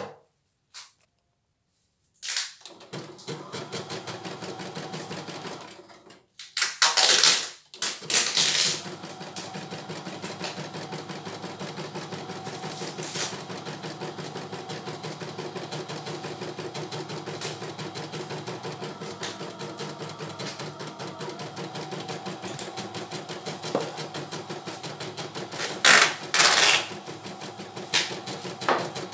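CNY E900 computerized embroidery machine starting up about two seconds in and stitching a pattern with a fast, steady needle clatter. A few louder clattering spells come around seven seconds in and again near the end.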